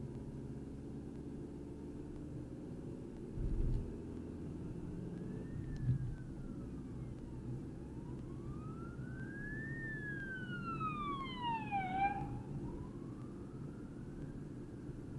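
Emergency vehicle siren wailing, its pitch sweeping slowly up and down every few seconds, starting about four seconds in, over the steady road noise of a car's cabin. A short low thump just before the siren begins.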